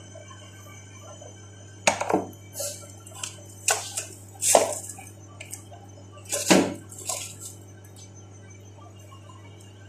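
Kitchen clatter: a string of sharp knocks and clinks between about two and seven and a half seconds in as cucumbers, a carrot and a plastic slicer are handled on the counter, over a steady low hum.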